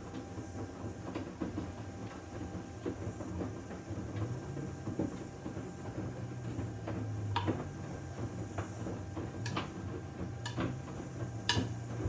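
Panasonic VX6 StainMaster+ front-loading washing machine in its main wash, the drum turning with a steady low motor hum and rumble. A handful of sharp clicks and knocks come in the second half.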